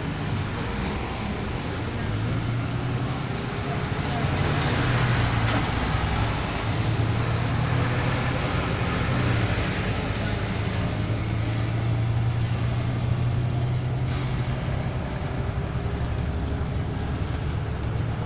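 Diesel engine hum and road noise heard from inside a bus as it pulls away from a toll booth and gathers speed, growing louder about four seconds in and then running steadily.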